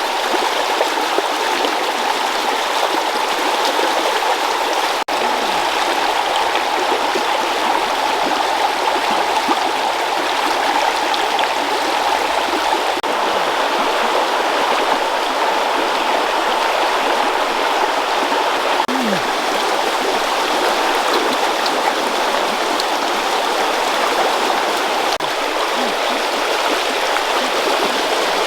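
Steady rushing water of a forest stream. A few short, low sounds falling in pitch are heard now and then, and there is a brief dropout about five seconds in.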